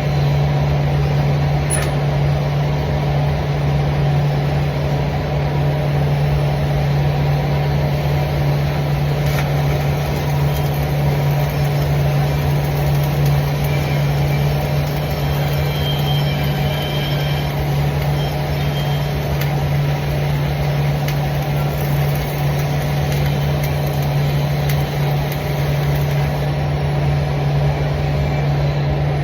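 A machine running steadily with a constant low hum over a noisy drone, unchanging throughout.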